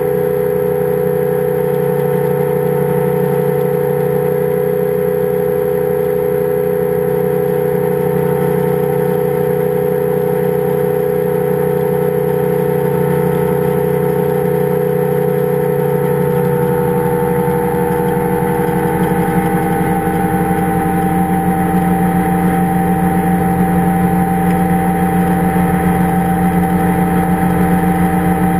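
Powered parachute's engine and propeller running steadily in flight. About two-thirds of the way through, its pitch shifts and it grows slightly louder.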